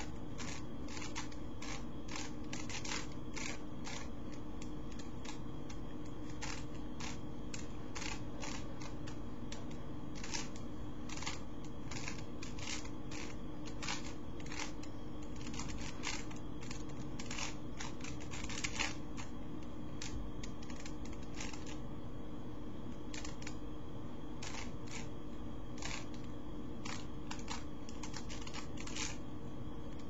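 Rubik's Cube layers turned rapidly by hand, the plastic clicking in quick irregular runs of several turns a second, with a louder flurry just past halfway. A steady low hum runs underneath.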